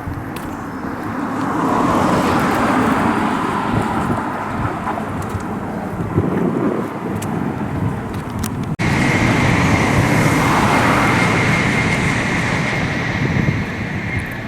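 Road traffic: motor vehicles passing close by, the noise swelling as each goes past, with an abrupt break about nine seconds in.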